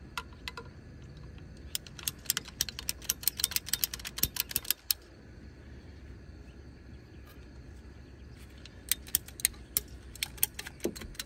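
Ratcheting hose cutter clicking as it is squeezed shut stroke by stroke through a length of hose: a quick run of sharp clicks about two seconds in, and another run about nine seconds in.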